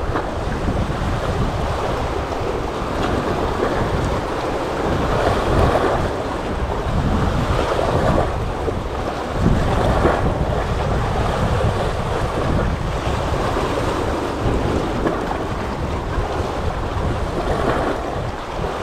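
Sea waves washing and wind buffeting the microphone: a continuous rushing noise, heavy in the low end, that swells every few seconds. The sea is rough.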